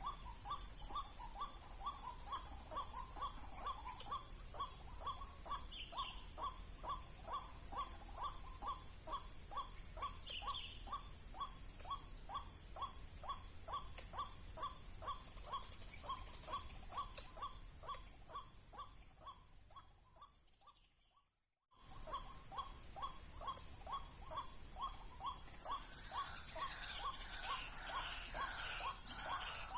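White-breasted waterhen calls: one short note repeated about two or three times a second, over a steady high whine. The sound fades out around twenty seconds in and cuts back in a second later. Other small birds chirp near the end.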